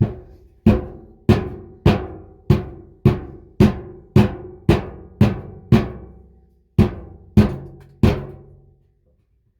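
A rock wrapped in a cloth bandana hammering the bottom of a tin bathtub, about fourteen ringing metallic blows a little under two a second, with a short pause about two-thirds through and the last blow a second before the end. The tin is being dented down around the drain hole so that water runs into it.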